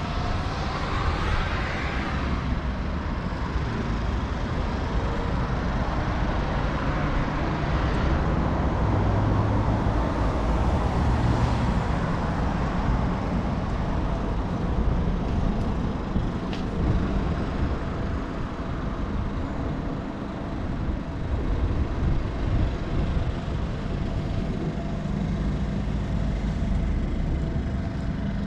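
Road traffic on a nearby road: a steady rumble, with a vehicle passing and its pitch falling as it goes by at the start.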